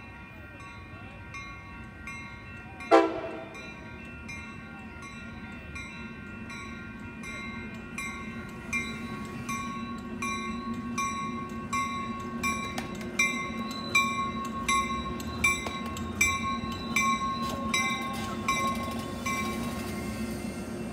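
Coaster commuter train rolling into a station. Its rumble builds as a warning bell rings steadily, growing louder as the train pulls alongside. A single sharp, loud clack comes about three seconds in.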